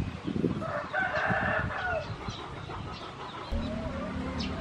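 A rooster crowing once, about a second in: one hoarse call lasting about a second, trailing off in short falling notes.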